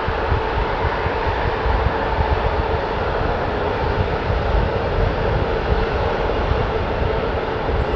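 Rolls-Royce Trent XWB engines of an Airbus A350-1000 running at taxi power: a steady jet whine over a low rumble, unchanging throughout.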